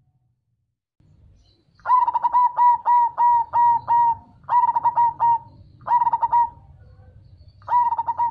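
Zebra dove (perkutut) cooing: four phrases of quick, evenly repeated coo notes. The first and longest phrase starts about two seconds in, and three shorter ones follow.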